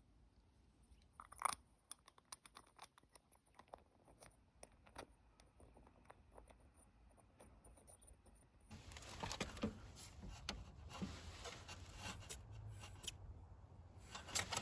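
Small metal carburetor parts clicking, clinking and scraping as they are handled and cleaned: scattered light taps throughout, busier and a little louder in the second half.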